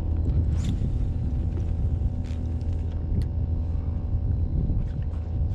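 A motor running steadily at a constant speed, a low hum with a few light clicks or taps over it.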